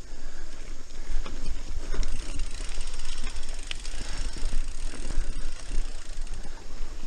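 Mountain bike ridden fast over dirt singletrack: tyres rolling on the trail and the bike rattling and clattering with many quick clicks over the bumps, over a steady low rumble.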